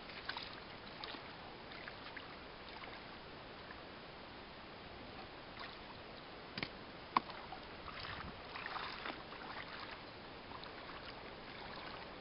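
Shallow river water splashing and sloshing as a person wades and handles a small plywood boat, with scattered knocks and clicks; one sharp knock about seven seconds in.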